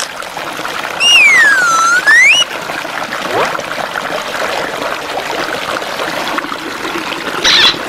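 Small creek running steadily over rocks, with a loud whistle-like tone about a second in that dips in pitch and rises again over about a second and a half.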